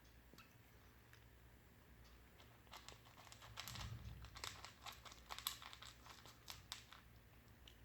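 A cat crunching dry cat food: a faint run of irregular crackles starting about three seconds in and easing off about seven seconds in.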